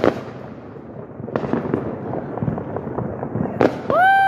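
Fireworks and firecrackers going off: scattered sharp bangs over a crackling background. Near the end a loud, long pitched tone starts, rising quickly and then holding.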